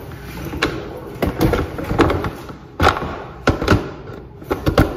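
Irregular knocks and thumps, about nine of them, from a handheld phone being handled, over a breathy haze as a vape cartridge is drawn on and the vapor exhaled.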